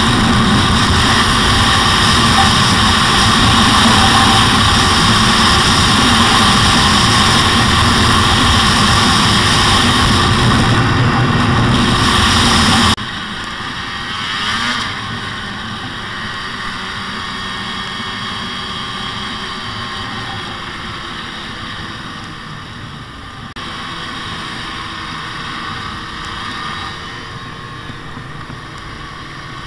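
Two-stroke Arctic Cat snowmobile engines running at riding speed with track and rushing noise. About thirteen seconds in the sound drops abruptly to a quieter, steady engine drone.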